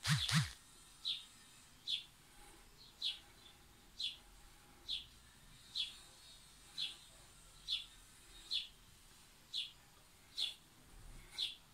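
A bird chirping over and over, one short high chirp about every second, about a dozen in all. A brief louder burst of noise right at the start.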